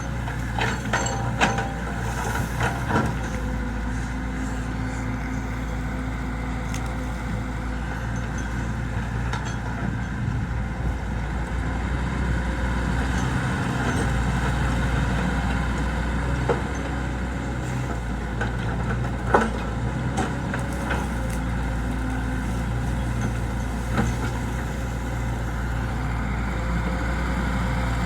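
Excavator's diesel engine running steadily, with scattered short knocks: several in the first three seconds, then single ones, the loudest about two-thirds of the way through.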